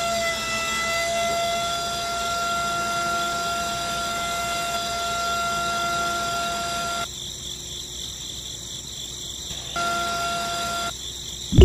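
Small DC motor of a toy winch whining steadily as it winds in string, dragging a model tractor onto a trolley. It stops about seven seconds in, then runs again briefly near the end.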